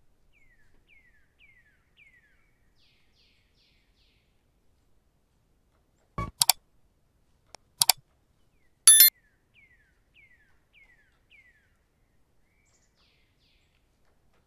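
Three loud, sharp metallic clinks, about six, eight and nine seconds in; the last one rings briefly. Faint bird-like chirps, each falling in pitch, come in quick runs of four before and after them.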